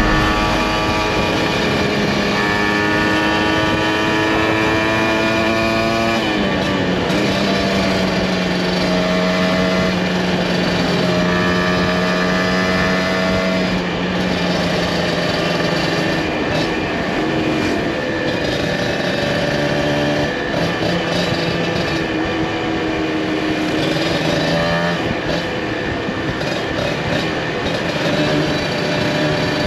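Two-stroke Kawasaki Ninja motorcycle engine running under way: its pitch climbs as the bike accelerates and drops at gear changes, about 6 and 14 seconds in, then climbs and falls again later.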